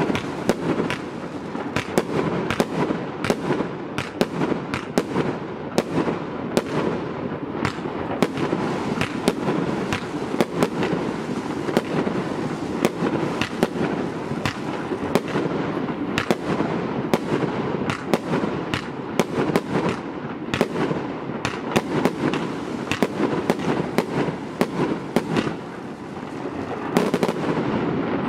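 Celtic Meso-Sphere multi-shot firework cake firing shot after shot: sharp bangs about one to two a second over a continuous noise of bursting stars. The noise grows louder near the end.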